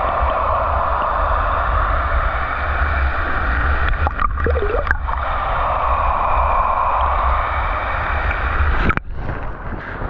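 Waterfall pouring into its plunge pool, heard through a submerged microphone: a steady churning rush with a low rumble. A brief gurgle of bubbles comes about four to five seconds in. About nine seconds in the sound changes abruptly and drops in level as the microphone breaks the surface.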